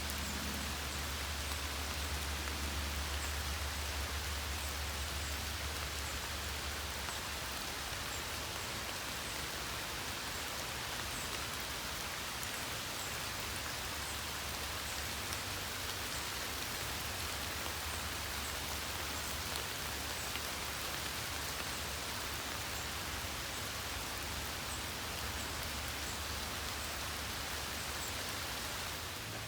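Steady rain falling, an even hiss with no let-up. A low rumble sits underneath, strongest for the first several seconds and then fading back.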